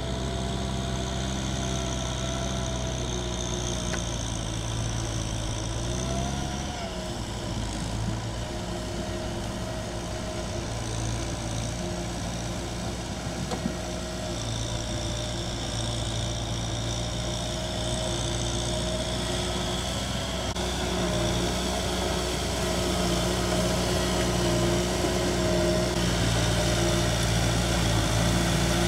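Kubota M6040S tractor's diesel engine running steadily under load as it plows through flooded rice-paddy mud, its pitch shifting briefly about six seconds in and getting louder in the last third.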